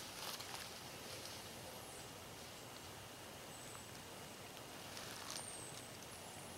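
Quiet woodland background: faint rustling with a few soft clicks, and several brief, thin, high chirps.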